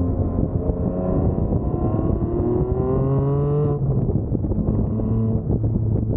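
A 2020 Porsche 718 Spyder's 4.0-litre flat-six accelerating through its exhaust, the note rising steadily for a few seconds. It then drops abruptly on an upshift and carries on at a lower, steady pitch.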